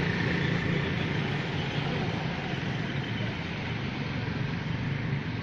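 Steady low drone of a running motor engine, easing off slightly toward the end.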